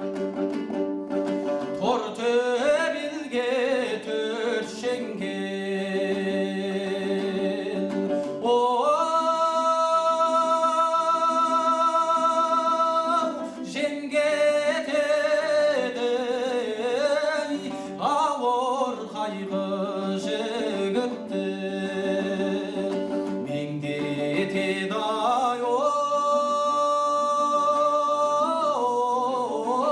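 Kazakh folk song sung to a three-string dombra: the plucked dombra runs steadily beneath a voice that moves through ornamented phrases and holds two long notes, one about a third of the way in and one near the end.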